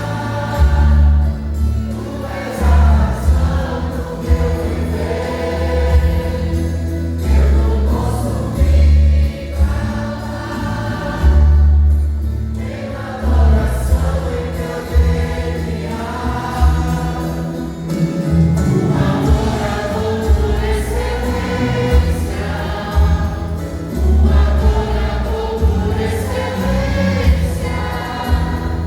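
A vocal group sings a gospel worship song in several voices over a strong, steady bass accompaniment.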